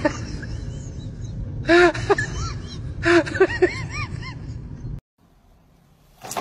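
Several short high-pitched calls over a low steady rumble. Each call rises and falls in pitch, and they come in quick runs about two and three seconds in. The sound stops abruptly about five seconds in.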